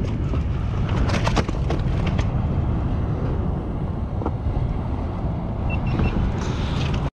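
Wind rumbling on the microphone, with a few light knocks and clicks over the first couple of seconds.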